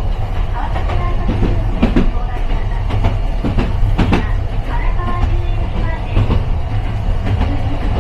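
Toden Arakawa Line streetcar running between stops, heard from on board: a steady low rumble, with irregular clicks and knocks as the wheels pass over rail joints.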